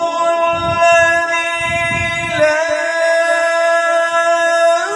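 A man reciting the Quran in the melodic tajweed style, holding one long note for nearly five seconds. It changes pitch once about halfway through and glides into an ornamented turn near the end.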